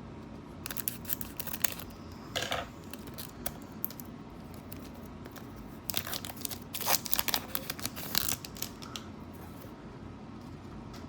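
Crinkly plastic wrapper of a Pokémon booster pack being torn open and crumpled, in several bursts of crackling: around a second in, briefly at about two and a half seconds, and a longer stretch starting about six seconds in.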